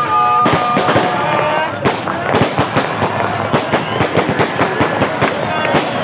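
Aerial fireworks going off in quick succession: a dense run of sharp bangs and crackles, several a second, with steady held tones heard over the first couple of seconds.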